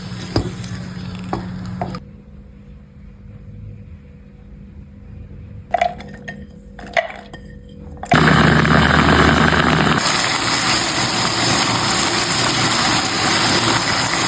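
Kitchen food-preparation sounds: a few sharp knocks and clinks, then about eight seconds in a loud, steady rushing noise starts and keeps going.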